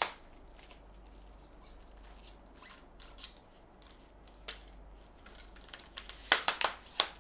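3 Legged Thing Equinox Albert carbon-fibre tripod being set up: its twist leg locks are turned and the leg sections handled, giving a scatter of light clicks and knocks, with a quick run of louder clicks near the end.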